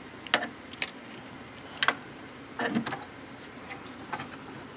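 A flathead screwdriver clicking and scraping against a coin-cell CMOS battery and its metal motherboard holder, about half a dozen sharp irregular clicks as the stuck battery is pried at.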